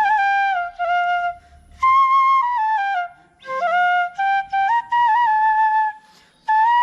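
Solo bamboo flute (bashi) playing a slow folk melody as background music, in short phrases that move step by step with small ornaments and brief breath pauses between them.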